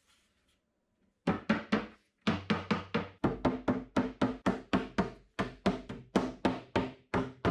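Background music with a steady drum beat and a low bass line, starting about a second in.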